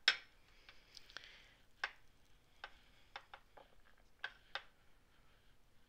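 Scattered light clicks and taps of a clay roller and ceramic tile as a slice of polymer clay is rolled out gently and turned; the loudest click comes right at the start.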